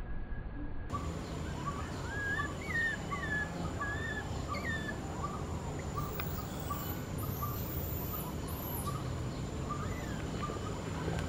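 Baby macaque crying: a run of short, high squeals that bend upward in pitch, about two a second, starting about a second in.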